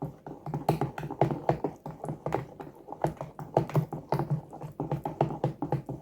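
Pancake batter being mixed by hand in a bowl: quick repeated taps and clicks of the utensil against the bowl, about three a second, as the lumps are beaten out.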